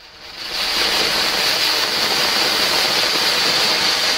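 Ashoka anar, a ground fountain firecracker, spraying sparks with a loud, steady hiss that builds to full strength within the first second.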